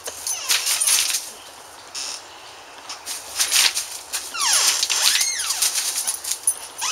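Puppy scrambling through dry leaves and gravel: bursts of rustling and scuffing, with a couple of short high whines about five seconds in.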